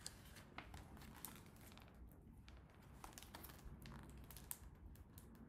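Faint rustling and a few soft clicks of a picture book's paper page being turned and handled, over near-silent room tone.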